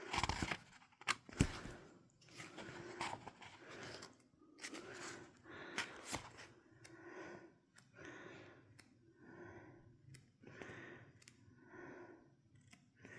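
Paper pages of a coloring book being turned one after another, with soft rustling swishes about once a second and a few sharp paper snaps and handling clicks in the first half.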